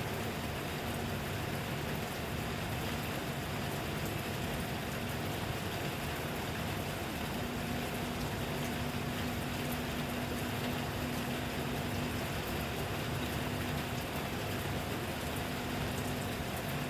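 Steady rain falling, a constant hiss with fine drop ticks, over a faint steady hum.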